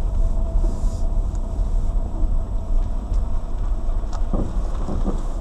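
Lada Granta liftback driving over bumps, heard from inside the cabin: steady low road and engine rumble with a few faint short knocks from the suspension. The knocking is the suspension fault being tracked down.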